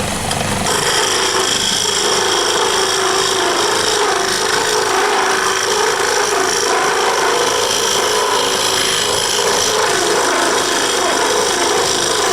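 Wood lathe spinning a wooden knife handle while a tool cuts it, a steady rasping scrape over the motor's hum; the cutting noise thickens about a second in.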